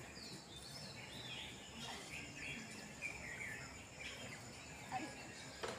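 Faint outdoor ambience: birds chirping in short, gliding calls scattered throughout, over a steady high-pitched hum.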